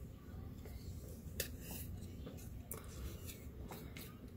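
Wooden craft stick scraping and tapping against a small plastic cup while scooping out liquid silicone mold rubber. It makes a series of soft, irregular scrapes and clicks, the sharpest about a second and a half in.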